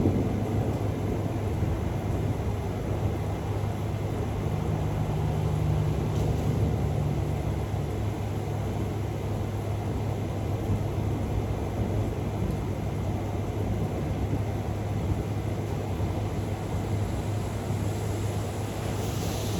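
Steady low rumble, heaviest in the deep bass, with no sharp cracks; a faint hum sits a little higher for a few seconds about a quarter of the way in.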